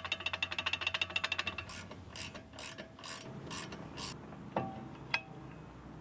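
A loose rear brake pad rattling in a Volvo brake caliper as the caliper is shaken by hand: a rapid metallic clicking, about ten clicks a second, for the first second and a half. The pad is loose because its pad spring is bent out of shape. Then come about six short scraping strokes and two metallic clinks as the pad is worked out of the caliper.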